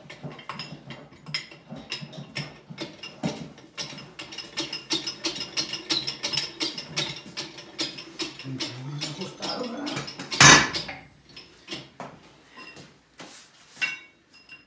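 Metal pier parts and tools clinking and knocking as they are handled, many quick sharp knocks, with one loud ringing metal clang about ten and a half seconds in.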